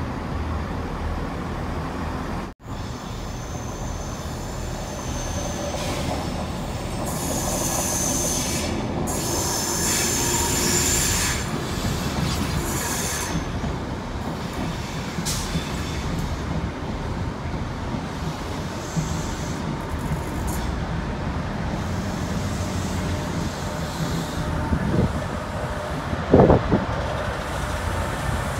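Locomotive-hauled Chiltern Railways Mk3 coaches running past along the platform, a steady rumble of wheels on rail. High-pitched wheel squeal comes in about a third of the way through, and a short loud rising tone sounds near the end.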